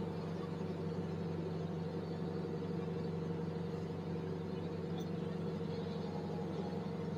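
Tracked excavator's diesel engine running at a steady speed while the upper structure slews round to the right.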